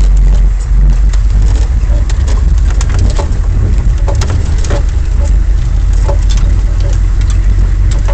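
Humvee's V8 diesel engine and drivetrain running steadily under way, heard as a loud low rumble inside the armoured cabin, with frequent short rattles and knocks from the body over rough ground.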